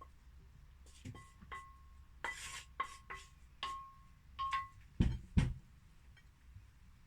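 A run of clinks and knocks of hard objects being handled, several leaving a short ringing note like crockery or metal struck together, then two heavy thumps in quick succession about five seconds in.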